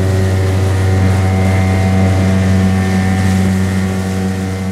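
Outboard motor running steadily at cruising speed, pushing a small aluminium boat across the lake, with an even hiss of wind and rushing water over the engine's drone.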